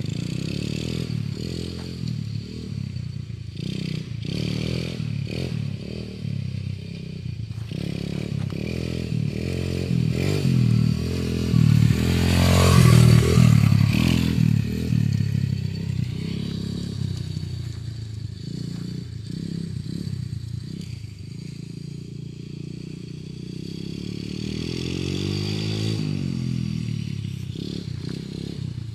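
Small children's dirt bike engine running, its pitch rising and falling as the throttle is worked. It is loudest about twelve to fourteen seconds in, as the bike passes close by.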